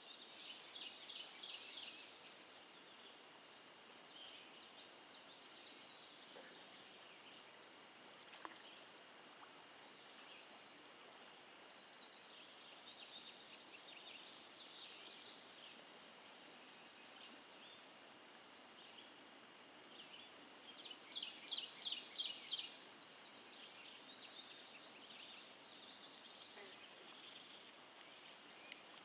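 Faint riverside birdsong: birds sing short repeated phrases, the loudest a rapid run of notes about three quarters of the way through, over a steady high-pitched hum.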